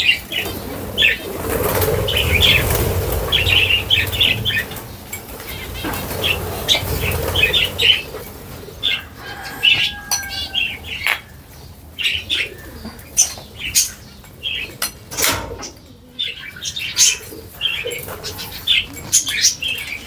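A flock of parrots flapping their wings in flight, with many short chirping calls throughout and a heavier rush of wingbeats in the first several seconds.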